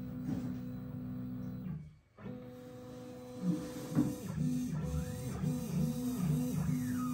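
Stepper motors of a CNC hot-wire foam cutter driving the wire through a cut. A steady pitched whine cuts out for a moment about two seconds in, then comes back as a run of shifting pitches and glides.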